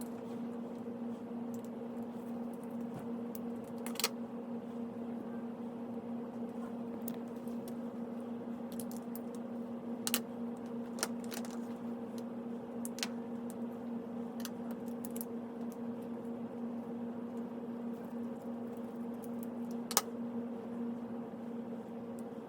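Steady electrical hum under scattered light clicks and a few sharper snaps, about four, ten and twenty seconds in, as compression F connectors are fitted onto RG-6 coaxial cable with a snap-and-seal compression tool.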